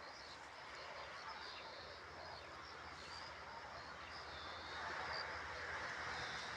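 Outdoor background: a steady rush of noise with a low hum, growing a little louder about five seconds in, and faint bird chirps over it.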